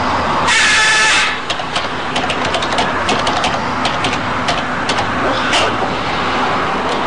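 Blue-and-gold macaw giving one loud, harsh squawk about half a second in. A scattered run of sharp clicks follows for several seconds, over steady background noise.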